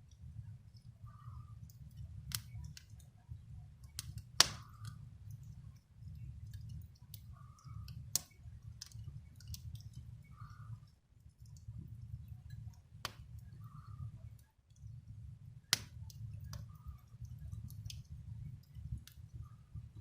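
Wood fire in a fireplace crackling, with scattered sharp pops, the loudest about four seconds in and again near the three-quarter mark, over a steady low rumble.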